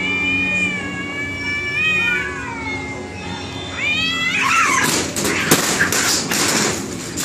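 Two domestic cats yowling at each other in long, wavering caterwauls that glide up and down in pitch. About four seconds in, this breaks into a sudden noisy scuffle of screeches and sharp clatters as they clash.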